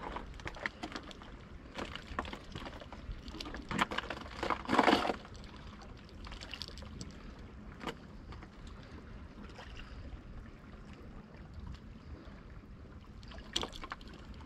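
Small waves lapping and gurgling against shoreline rocks, with scattered clicks and a louder brief scuffle of noise about five seconds in.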